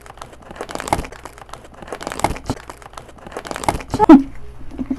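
Crinkling of plastic packaging being handled, in three or four short bouts with sharp crackles. A brief vocal sound just after four seconds in is the loudest moment.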